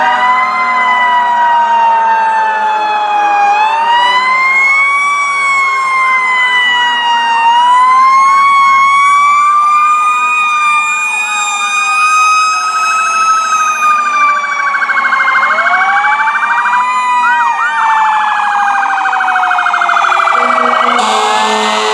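Several emergency vehicle sirens, fire trucks among them, sounding together as the vehicles pass. A slow wail rises and falls every few seconds, with faster wails layered over it, and a rapid warbling siren joins from about halfway in.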